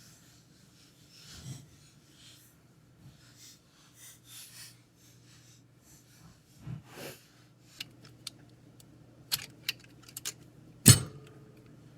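Small metal parts of a lock cylinder clicking and clinking as it is taken apart by hand, with soft rubbing and handling noises. Sharp clicks come in a quick run near the end, then one loud knock.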